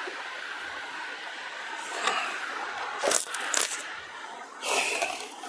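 Dresses in plastic covers and on plastic hangers being handled: a few short crinkling rustles and sharp clicks, the longest rustle near the end.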